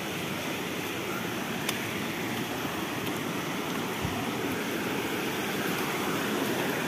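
Stream water rushing over rocks, a steady wash, growing slightly louder near the end, with a faint click or knock twice.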